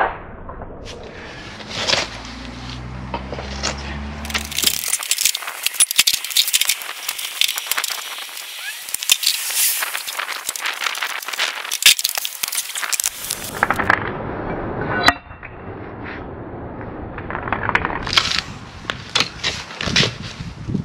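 Irregular clinks, knocks and scraping of bricks and tools being handled, with a low hum in the first few seconds.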